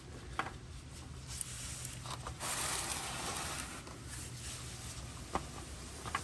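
Handling noise while a new oil filter is worked into place by hand: a few light clicks and a rustling hiss lasting about a second and a half in the middle.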